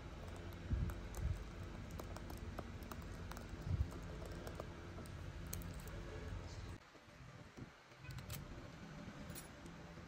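Light clicks and taps of fingers pressing and handling the small keypad of a Vertu Signature S phone, with a few louder knocks in the first four seconds.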